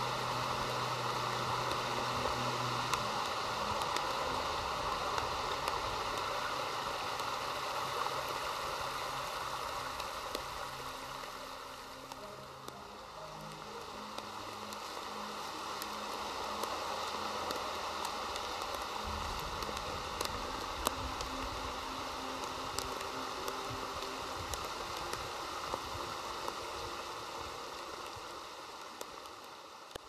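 Steady rush of a small rocky woodland stream with rain falling, scattered raindrop ticks over it; the rush dips briefly about twelve seconds in.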